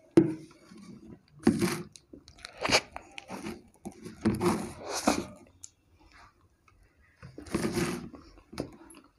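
Mouths eating soft cake without hands: close-up biting and chewing noises, coming in irregular bursts with short pauses between them.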